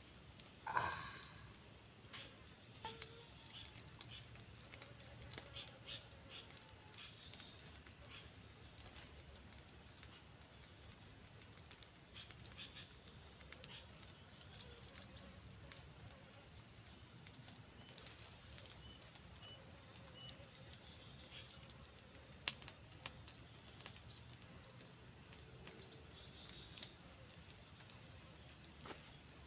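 Insects trilling in a steady, high-pitched, continuous chorus. There is a brief louder sound about a second in and a single sharp click about 22 seconds in.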